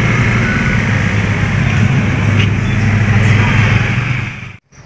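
Street noise: a vehicle engine running steadily, with voices in the background. It fades out about four and a half seconds in.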